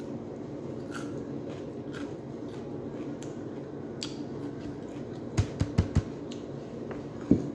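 Tableware and a plastic food container handled on a table: a few soft clicks, then a quick run of four knocks about five and a half seconds in and one louder knock near the end. A steady low hum lies underneath.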